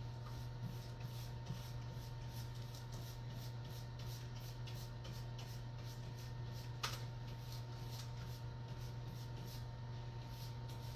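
Paint being applied to a wall in quick, even scratchy strokes, about two to three a second, over a steady low hum. One sharper click comes about seven seconds in.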